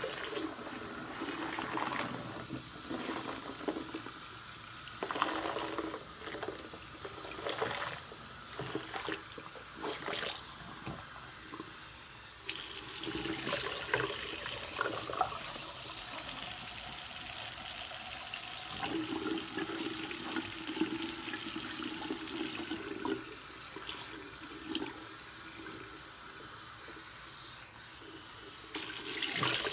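Tap running into a bathroom sink while a lathered sponge is squeezed and rinsed under it, with wet squishing and squelching. The stream gets louder and steadier from about twelve seconds in to about twenty-three seconds, then again near the end.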